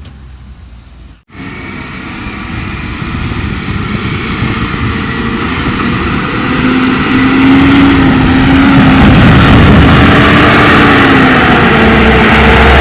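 Heavy diesel vehicle engine running. It starts about a second in and grows steadily louder as it draws near, then holds loud and steady.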